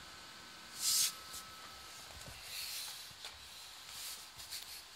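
Handling noise from a handheld camera being moved: a short loud hiss about a second in, then softer rubbing swells and small ticks, over a faint steady background with a thin high tone.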